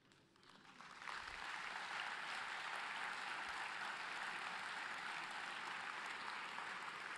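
Large seated audience applauding in a conference hall, the clapping building up over the first second and then holding steady.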